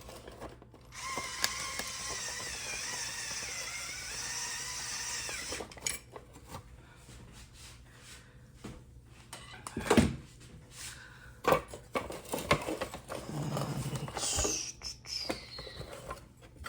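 Small electric screwdriver running steadily for about five seconds while driving a screw into the side-mirror assembly, its pitch wavering under load. It is followed by scattered clicks and one loud knock of parts being handled, and a short buzz near the end.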